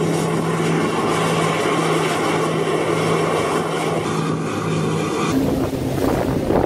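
Steady rush of wind and sea water with a low, even engine hum, as heard from a boat running alongside a submarine at sea. About five seconds in, the hum shifts to a higher note.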